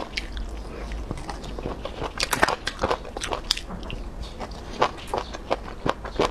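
Close-miked mouth sounds of a person eating: biting fried skewered food off a bamboo skewer with the teeth and chewing it. Many short wet clicks and crackles, most dense about two to three and a half seconds in.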